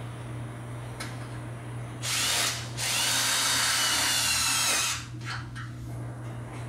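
Power drill driving self-drilling tek screws into the sheet-metal fixture: a short run of about half a second, then a longer run of about two seconds with the motor whine through it.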